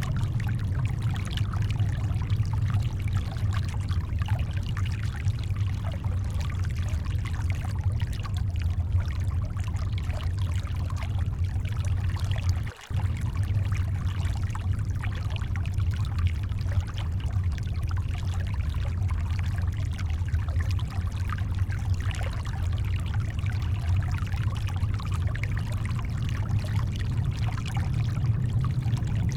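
Brown noise blended with shoreline water: a deep, steady rumble with a fainter watery hiss above it. The sound cuts out for a split second about thirteen seconds in.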